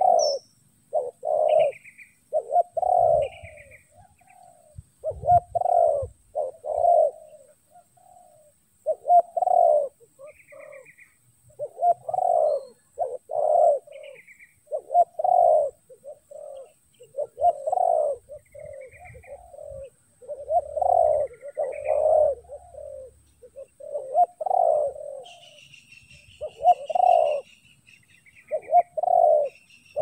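Spotted doves cooing over and over in short repeated phrases. Small birds chirp faintly higher up, and a thin high trill comes in near the end.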